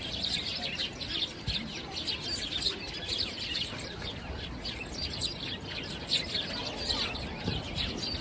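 Eurasian tree sparrows chirping: a dense, continuous run of short, quick chirps.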